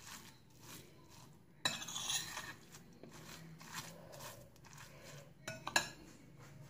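Metal spoon stirring a grated raw potato mixture in a glass bowl, scraping and clinking faintly against the glass, with two sharper clinks near the end.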